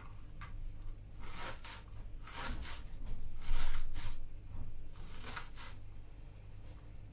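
Food-preparation handling noise: four short rustling scrapes about a second apart, the loudest a little past the middle, over a low steady hum.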